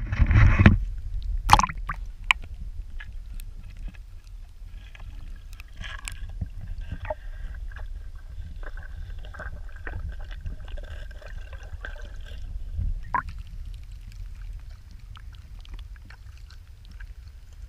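Pool water splashing and sloshing against a GoPro in its waterproof housing as it is dipped under the surface, with a steady low rumble and muffled gurgles and knocks. The strongest splashes come at the very start and about a second and a half in, with another near the end.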